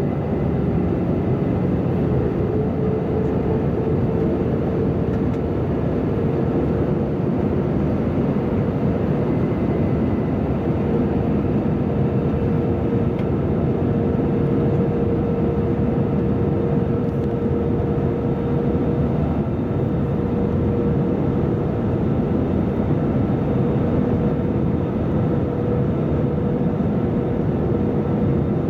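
Cabin noise inside an Airbus A320-214 in flight: a steady rush of airflow and the hum of the wing-mounted CFM56-5B turbofan engine, with a faint tone that rises slightly over the first ten seconds or so and then holds.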